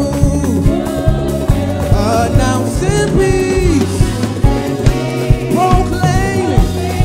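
Live Ghanaian highlife gospel praise music: a lead singer and backing singers sing together over keyboards, bass guitar and drum kit with a steady beat.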